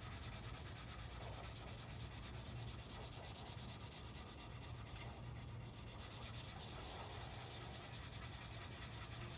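Sandpaper rubbed back and forth by hand over the cured epoxy coat of a carbon-fibre rowing rigger, flattening the repair, in a steady rasping rhythm. A steady low hum runs underneath.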